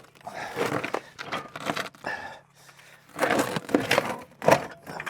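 Irregular knocking, scraping and rustling of prospecting gear and a gravel bucket being handled, with a few sharp louder knocks in the second half.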